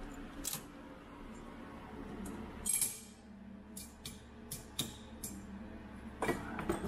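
Scattered metallic clinks and taps as a torch-heated bearing is handled with pliers and set onto a semi-truck power divider input shaft, then tapped down with a hammer; the loudest strikes, a couple of ringing taps, come about six seconds in.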